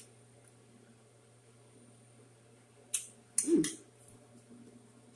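Close-up mouth sounds of someone chewing a forkful of crunchy salad with lettuce and apple pieces: a single click at the start, then a few sharp crunches about three seconds in with a brief low hum of the voice, over a steady low hum.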